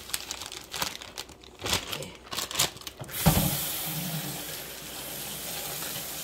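Crinkling and tearing of the packaging around a frozen slab of jowl bacon as it is handled. About three seconds in, a tap is turned on and water runs steadily.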